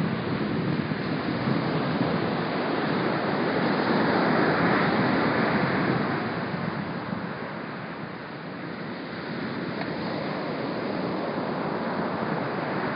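Small ocean waves breaking and washing up on a sandy beach, with a light breeze buffeting the phone's microphone. The wash swells about four seconds in, eases off around eight seconds, then builds again.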